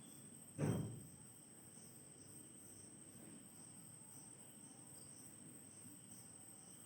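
Faint steady high-pitched whine with a quick, evenly pulsing chirp above it, and a single dull thump a little over half a second in.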